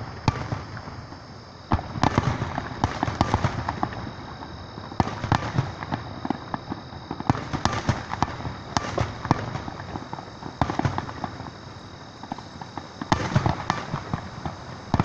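Fireworks display: a string of booming bursts and rapid crackling, with the loudest bursts about two seconds in, around five, seven and nine seconds, and again near the end.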